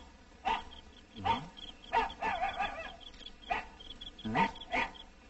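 Dog barking about six times at uneven intervals, over a steady high chirping.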